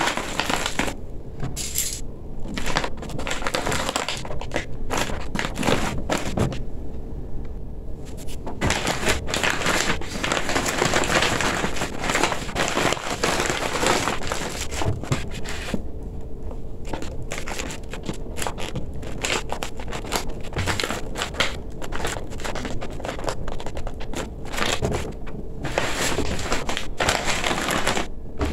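Stiff, shiny gele head-tie fabric rustling and crinkling as hands fold, pleat and tuck it. The rustles come quick and irregular, with a few short pauses.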